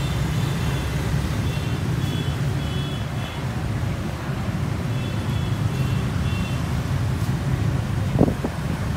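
Steady rumble of street traffic, motorbikes and cars, with two runs of short, high beeps early on and in the middle, and a brief knock near the end.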